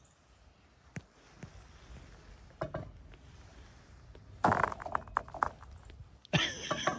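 Frozen pond ice cracking with a loud, sharp crack about four and a half seconds in, breaking into a quick run of snaps as the crack spreads out across the ice sheet, with another burst of cracking near the end. A few light taps or steps on the ice come before it.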